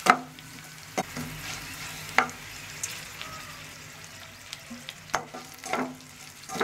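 Cashews, mustard seeds, urad dal and green chilies frying in ghee in a non-stick kadai with a faint, steady sizzle, as a spatula stirs through them and taps the pan sharply about six times. This is the tempering, with the cashews being cooked until lightly reddened.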